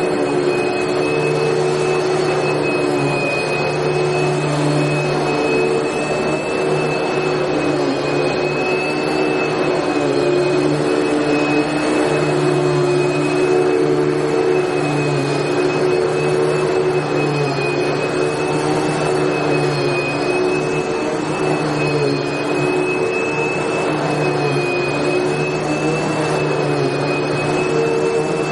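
Vacuum cleaner running steadily, a constant whooshing motor hum with a high whine, unchanging throughout.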